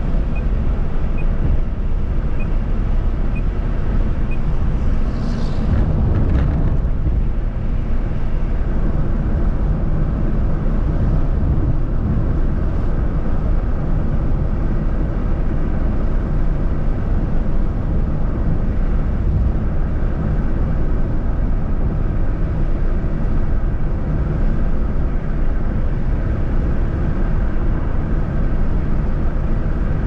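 Car driving at speed on a highway: steady road and wind noise, heaviest in the low rumble.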